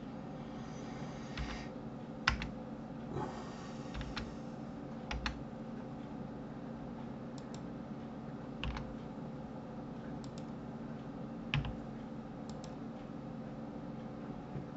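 Scattered, irregular clicks of a computer keyboard and mouse during 3D modelling work, about a dozen separate presses over a steady low background hum.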